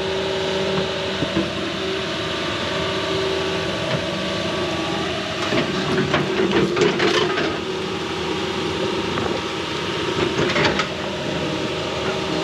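An excavator's diesel engine running steadily, with bursts of crackling and snapping from about five to seven seconds in and again near eleven seconds, as branches break while the machine works a silver maple.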